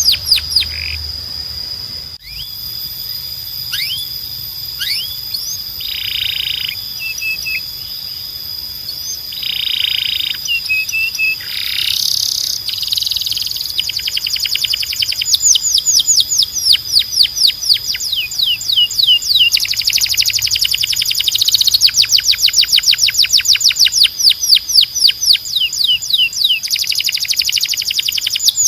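Timbrado canary singing: long, rapid trills of repeated sweeping notes broken by a few short harsh rolls. The trills grow faster and louder in the second half.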